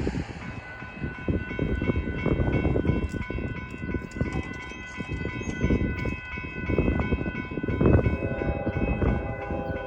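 Train passing with its air horn sounding a sustained chord that starts about half a second in, over a rumbling, uneven low noise. A lower set of horn-like tones joins about eight seconds in.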